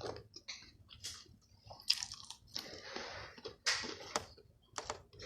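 A person chewing food close to the microphone: irregular wet mouth clicks and smacks, with a few longer crunchy stretches near the middle.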